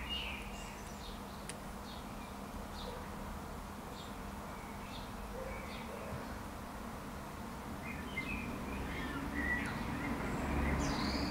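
Small birds chirping on and off, short high calls scattered through, more of them near the end, over a steady low hum and a low rumble that grows louder near the end.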